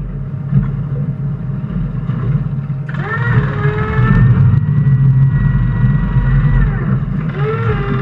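Skater 368 race catamaran's engines running at low speed with a deep rumble. The pitch rises about three seconds in, holds steady, then drops back and lifts again near the end as the throttle is worked.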